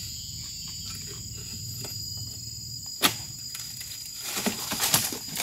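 A dodos harvesting chisel on a long pole striking into an oil palm's crown: one sharp chop about three seconds in, then several quicker strikes near the end. A steady high insect drone runs underneath.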